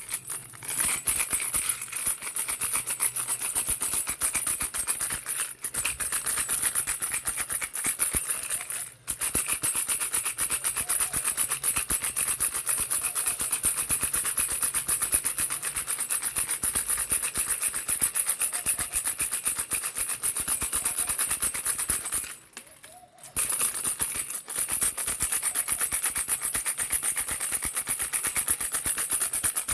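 Baby rattle shaken rapidly and continuously, a dense fast clatter that breaks off briefly about nine seconds in and again for about a second near twenty-three seconds.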